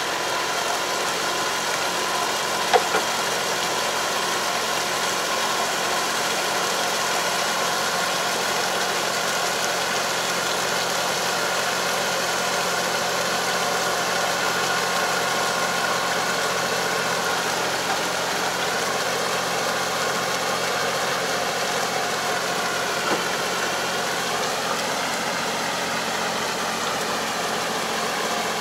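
Farm tractor's engine running steadily under load as it pulls a Kobashi 3 m harrow through a flooded rice paddy, puddling the field; its note rises and falls a little about two-thirds of the way in. A brief sharp knock sounds about three seconds in.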